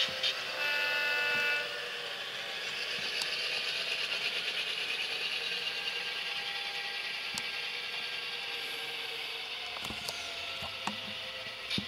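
HO-scale Athearn Genesis F3 diesel locomotives with Tsunami sound decoders. About half a second in, the lead unit's horn gives a blast of about a second. After that the decoder's diesel engine sound runs steadily, with the whir of the model's gear mechanism and a few clicks of wheels on track near the end.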